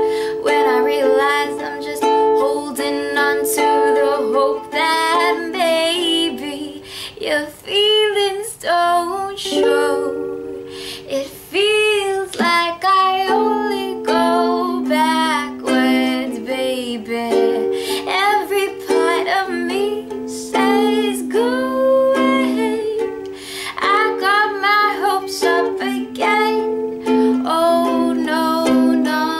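Ukulele strumming chords, moving from D minor through F to C, with a voice singing over it.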